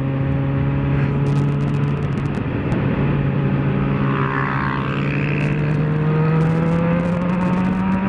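Yamaha XJ6's 600 cc inline-four engine heard on board while riding. It runs steadily in gear, then rises smoothly in pitch through the second half as the motorcycle accelerates.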